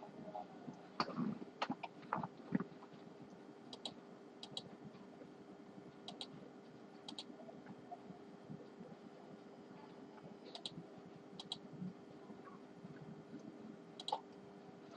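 Small metal repair tools clicking and tapping while the tiny screws of an iPhone's internal bracket are removed: a few sharp knocks near the start, then scattered crisp ticks, often in pairs. A faint steady hum sits underneath.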